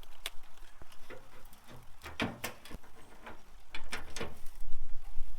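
Scattered light clicks and scrapes of hand work under a pickup truck: tools and loose bolts or nuts being handled, with a few sharper knocks about two and four seconds in.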